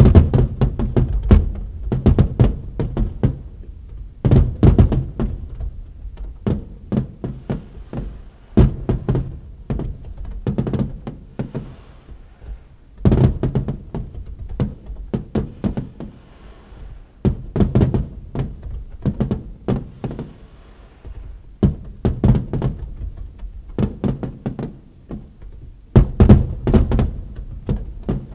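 Fireworks display: aerial shells bursting in quick volleys of booms, with short lulls between the volleys. Heard from inside a parked car through its dashcam microphone.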